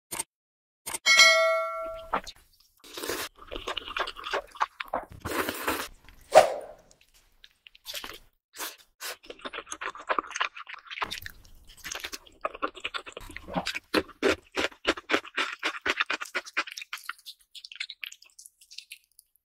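A bell-like ding sound effect about a second in, then close-miked mukbang eating: biting into and chewing glazed chicken, with repeated crunching and wet chewing sounds.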